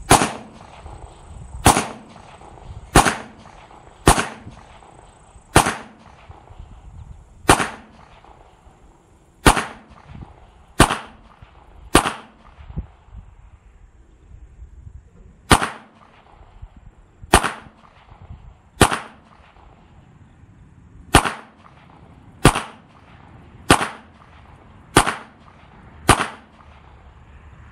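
Bul Armory Axe Cleaver full-size 9mm pistol, a Glock 17 clone, fired in slow aimed single shots: about seventeen shots, each one to two seconds apart, with a pause of several seconds about halfway through.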